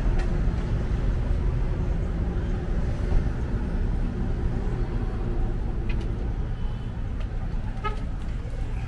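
Steady low rumble of vehicle traffic, with a short high beep near the end.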